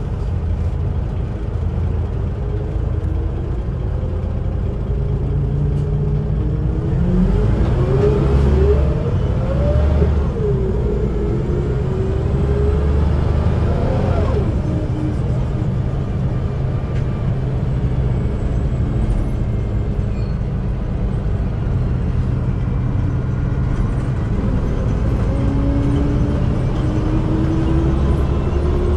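Karosa B 741 articulated city bus with a natural-gas (CNG) engine idling steadily with a low hum. A whine rises and falls between about 7 and 14 seconds in, and another whine rises near the end.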